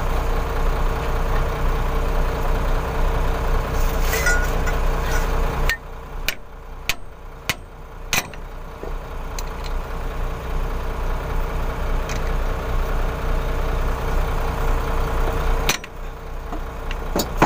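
Steady drone of an engine running nearby, dropping sharply in level about six seconds in. Over it come four sharp metal clicks about half a second apart, from a pipe wrench being worked on a truck's differential pinion nut.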